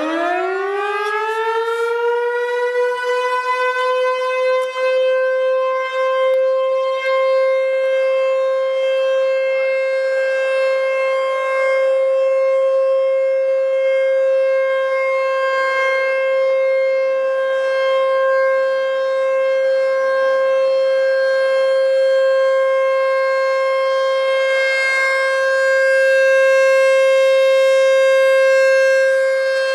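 American Signal T-128 warning siren finishing its wind-up, its pitch rising over the first few seconds, then sounding one steady, loud tone.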